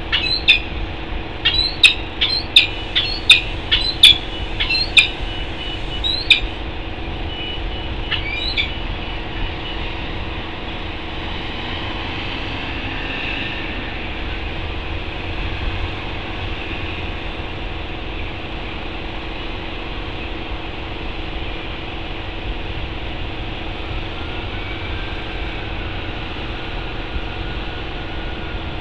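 Peregrine falcon giving a run of sharp, repeated calls, about two a second, that stop after about six seconds with one last call near eight seconds. A steady rumble of city traffic with a constant hum runs underneath.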